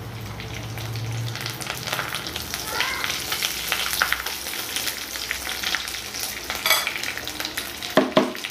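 Fresh curry leaves sizzling and crackling in hot coconut oil, stirred with a wooden spatula, with a couple of sharp knocks near the end.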